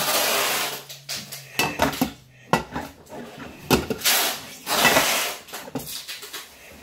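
Dishes and cutlery clattering in several short bursts as they are handled, with a low steady hum through the first couple of seconds.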